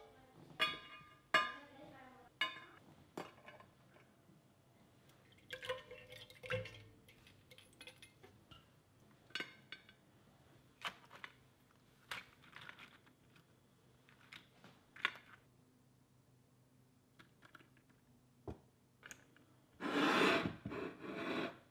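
Metal kitchen tongs clinking against a steel pot and cooked crayfish being clacked down onto a ceramic platter, a series of scattered sharp clicks and clinks. Near the end a longer, louder scraping noise as the loaded ceramic platter is slid and turned on the stone counter.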